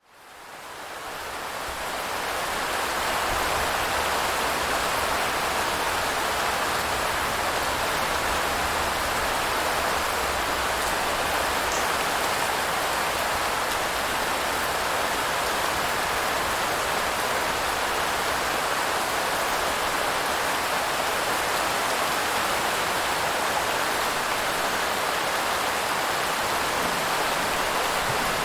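Steady rain, fading in over the first few seconds and then holding even.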